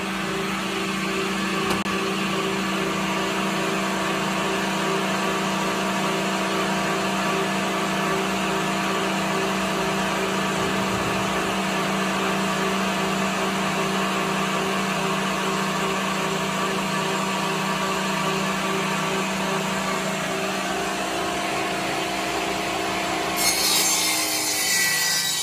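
A power tool running steadily with a constant motor hum and a harsh sawing, rubbing noise. Near the end the hum drops away and a brighter, hissier sound takes over.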